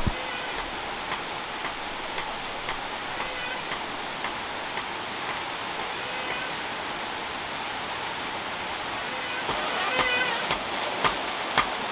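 Steady rain hissing on foliage and water, with a faint regular knocking about twice a second. Near the end the knocks grow louder and some carry a short squeaky ring, from the waterwheel-driven plunger bellows at work.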